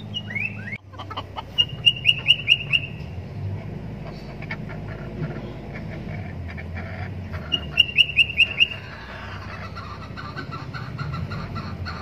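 Chickens clucking as they forage, with two quick runs of about six loud, high-pitched notes, one about one and a half seconds in and another near the middle.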